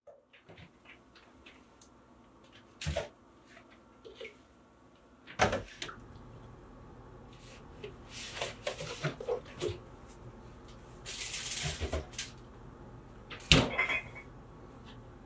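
Quiet household movement in a kitchen: several separate knocks and thuds, the loudest near the middle and near the end, and two short stretches of hiss, over a steady low hum.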